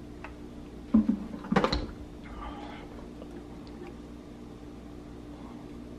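Quiet kitchen room tone with a steady low hum, broken by two brief knocks between one and two seconds in.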